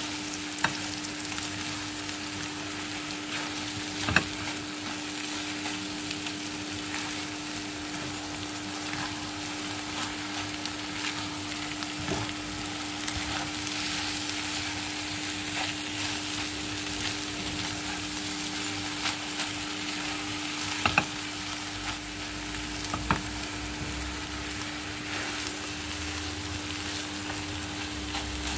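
Shrimp and scrambled egg sizzling in hot oil in a pan while being stirred with a spatula, with a few sharp knocks of the spatula against the pan over a steady low hum.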